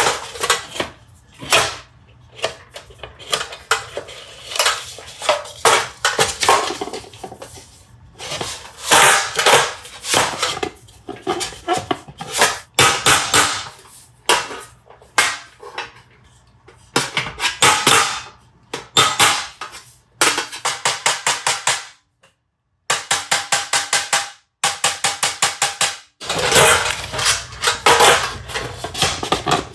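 Hand-work noises at a workbench: irregular knocks, clatters and clinks of tools and material being handled. After a short break about two-thirds of the way in, they become runs of rapid, evenly spaced taps, several a second.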